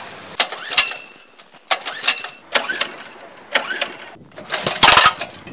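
Metal clicks and clanks from handling a gas-engine snowboard winch rig: a series of sharp knocks about once a second, some with a short metallic ring, then a louder, longer clatter near the end.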